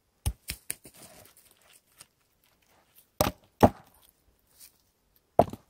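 Freshly cut ponderosa pine rounds knocking against each other as they are handled and set down. A quick run of three sharp wooden knocks, then two more about three seconds in, and another near the end, with light scraping of wood on wood between them.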